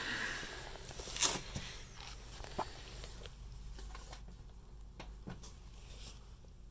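Faint handling sounds of a hand and camera at the front of a TV cabinet: one louder knock about a second in, then a few light clicks, over a low steady hum.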